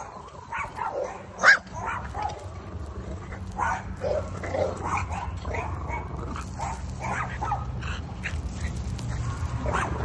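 Small black-and-white dog on a chain barking repeatedly, about one or two barks a second, the loudest about one and a half seconds in. The dog is brabo, fierce, warning off anyone who comes near. A steady low rumble runs underneath from about two seconds in.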